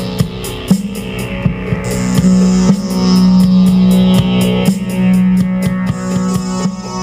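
Intro music: a rock track with guitar over a steady drum beat.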